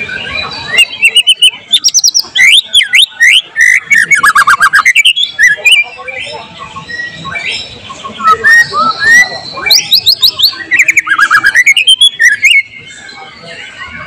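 White-rumped shama singing loud, fast phrases of rising and falling whistled notes mixed with rapid ticking notes, in two runs with a pause of about two seconds between them.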